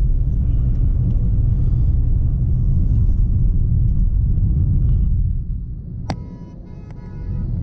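Low rumble of a vehicle travelling on the road, road and wind noise on the microphone, which eases about five seconds in. Near the end a sharp click is followed by a brief pitched buzzing tone.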